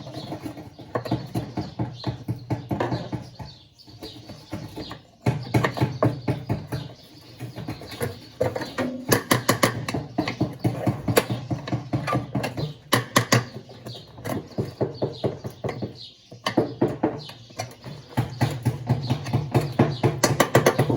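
Rapid runs of clicks and knocks over a steady low hum, typical of tools working on a washing machine being taken apart. The sound drops away briefly about four seconds in and again near the end.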